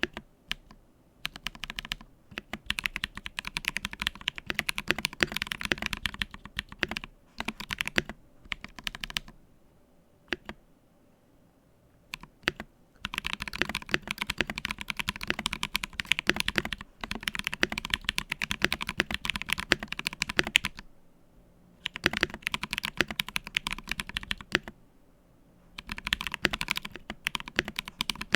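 Typing on a mechanical keyboard with lubed Ethereal Panda tactile switches, an acrylic-plate case and PBT keycaps: fast runs of keystroke clacks in bursts of several seconds, with pauses between them, the longest about ten seconds in.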